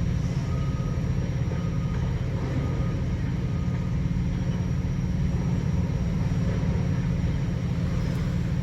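Semi truck's diesel engine idling: a steady low rumble with no change in pace.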